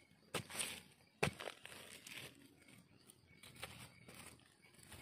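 Faint rustling and crackling of fingers scraping through dry grass stems and crumbly dry soil, with two sharp clicks about a third of a second and a second and a quarter in.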